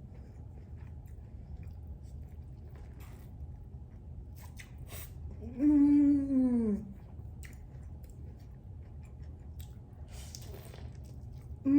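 A person chewing food, with small wet mouth clicks. About six seconds in comes one hummed "mmm" of enjoyment, about a second long, falling in pitch.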